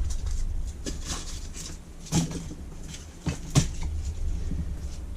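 Polystyrene packing being handled and moved aside: quiet rustling with about four sharp knocks and clicks.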